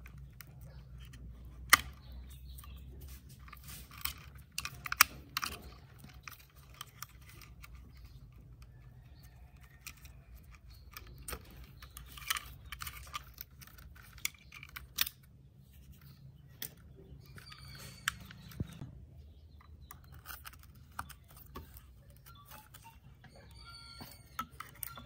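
Scattered clicks, taps and small rattles of wires and plastic plug connectors being handled and pulled loose from a hoverboard's mud-caked circuit board, over a low steady hum.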